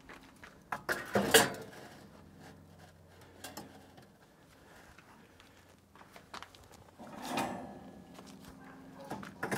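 Metal cooking grate being set into a Weber Summit Charcoal kettle grill and its round centre insert handled: scattered clanks and scrapes of metal on metal. The loudest come about a second in, and there is a longer clatter about seven seconds in.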